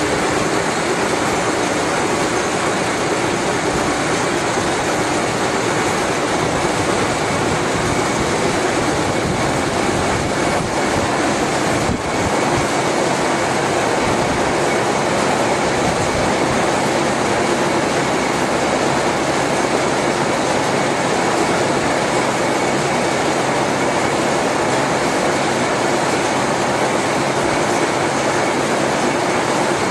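GE/Fitchburg horizontal spline and pinion hobber running under power: a steady mechanical drone of its gear train and drive with a constant hum. There is one brief click about twelve seconds in.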